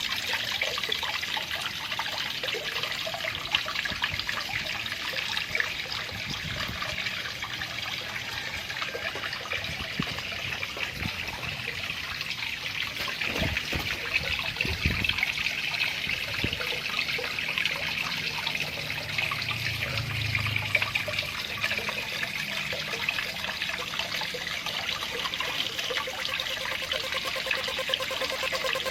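Water trickling and splashing steadily from an aquarium-pump outflow into a small cement pond, with a few low knocks about halfway through.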